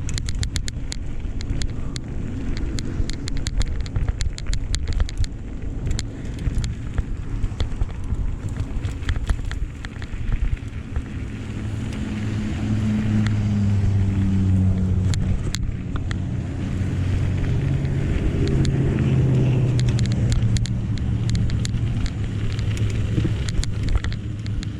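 A motor vehicle's engine, its low hum swelling through the middle of the stretch and easing off near the end, over wind noise. A rapid crackle of sharp clicks runs through the first few seconds.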